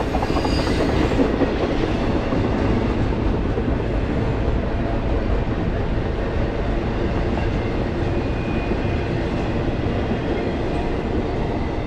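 Intermodal freight train's flatcars carrying trailers rolling past: a steady rumble of steel wheels on rail.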